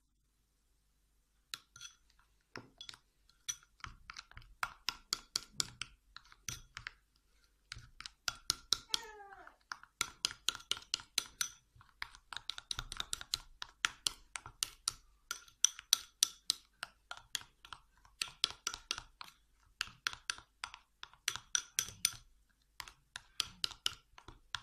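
Metal spoon stirring a thick blue nila paste in a glass bowl, scraping and clicking against the glass in quick strokes, several a second, to work out lumps of the powder. A short falling squeak sounds about nine seconds in.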